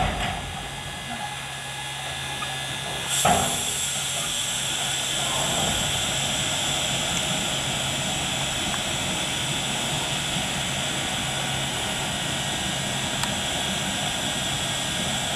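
Water rushing from the water tower's spout into the tender tank of a Shay geared steam locomotive. The flow starts with a sudden burst about three seconds in, then runs on steadily.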